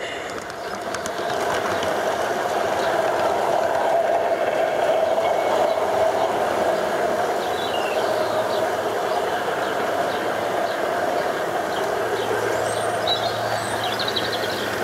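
G-scale model locomotive running along garden track: a steady whirring drone from its electric motor and gearing, with the wheels rolling on the rails. A lower hum joins in about three-quarters of the way through.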